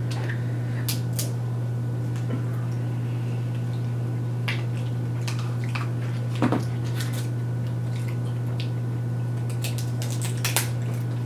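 Eating sounds at a seafood meal: scattered clicks, cracks and squishes of crab shells being broken open and handled against dishes, the loudest about six and a half seconds in, over a steady low hum.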